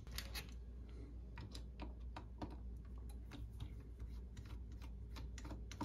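Faint, irregular small clicks and taps of hands handling a drone's plastic shell and small parts, over a low steady hum.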